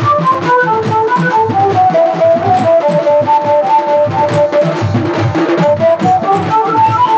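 Music: a melody line over a steady beat.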